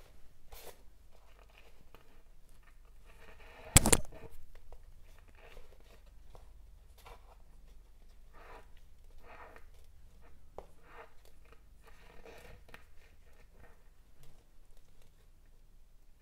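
Waxed polyester macramé threads scratching and rustling in short, irregular strokes as they are pulled through and tightened into knots on a hardboard clipboard, with one sharp knock about four seconds in.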